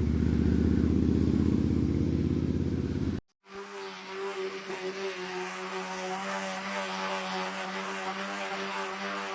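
A motor running with a loud low rumble, cut off suddenly about three seconds in. After a short gap, a quieter, steady motor hum takes over.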